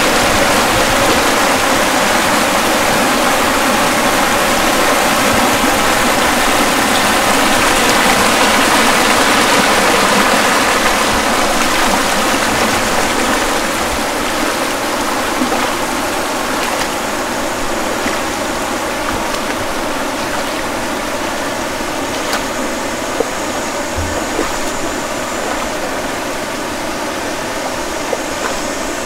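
Rushing stream water, a steady roar of flowing water that grows gradually quieter from about halfway through, with a few light clicks in the second half.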